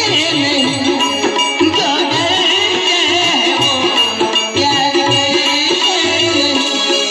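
Loud folk music through a public-address system: a melodic instrument playing a wavering tune over a steady, regularly repeating drum beat.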